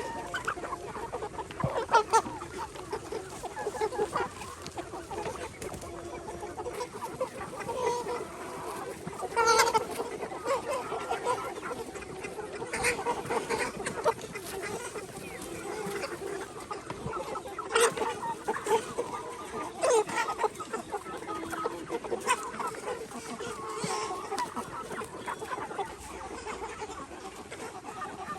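A flock of egg-laying hens clucking continuously, many short overlapping calls, with a few louder sharp sounds standing out now and then.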